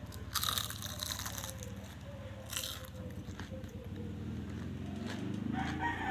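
Crunching bites into a crispy fried pork lumpia (spring roll), then chewing. The crisp crackles come in a cluster about half a second in and once more about two and a half seconds in.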